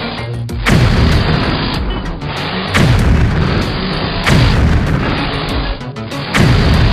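Music with a heavy boom hitting four times, each boom falling in pitch.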